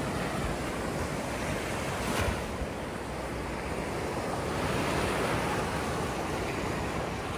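Ocean surf washing onto a beach: a steady rush of waves that swells a little about five seconds in, with wind on the microphone. There is a brief tap about two seconds in.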